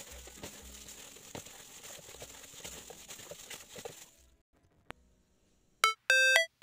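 A plastic bag worn over the hand crinkles and squishes as it kneads minced pork, fish and shrimp wonton filling in a plastic basin, with dull thuds against the basin. It stops about four seconds in; near the end, loud electronic music of short, repeated ringtone-like notes begins.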